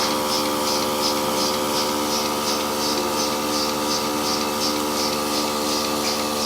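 Portable electric bucket milking machine running: its vacuum pump motor hums steadily while the pulsator gives a rhythmic hissing pulse several times a second.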